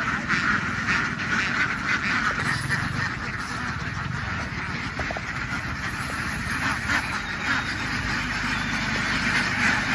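A large flock of ducks quacking all at once in a steady, dense chorus, with a low rumble underneath.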